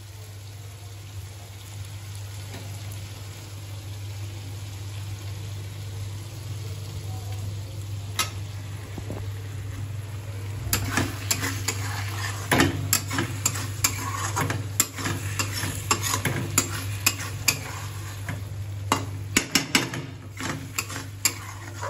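Chicken curry sizzling in a metal kadai over a steady low hum. From about ten seconds in, a flat metal spatula stirs it, scraping and clicking against the pan many times.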